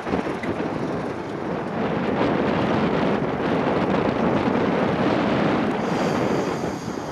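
English Electric 12SVT diesel engine of a BR Class 31 (Brush Type 2) locomotive running, heard through heavy wind buffeting on the microphone.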